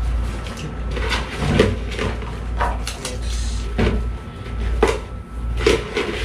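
Knocks and clatter of a pair of mixing bowls being handled and pulled out of their packaging, about six separate knocks, with a brief rustle of wrapping near the middle.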